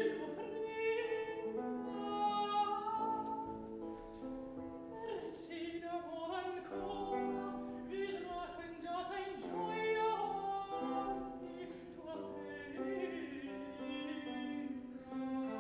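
Baroque opera aria: a woman singing with vibrato over a small string ensemble playing held chords.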